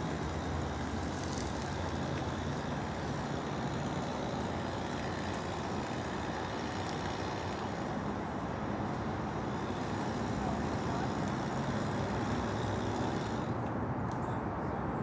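Steady low engine hum of an idling vehicle with road-traffic noise; the higher hiss fades out about 13 seconds in.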